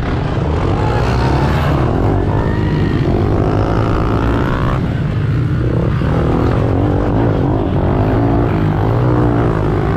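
Pit bike engines running hard in a race, the pitch repeatedly climbing and dropping as the throttle is opened and closed. More than one bike is heard, close together.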